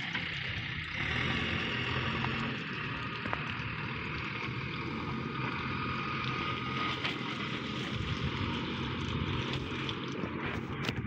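Diesel engines of farm tractors and a backhoe loader running steadily, heard as a continuous low drone.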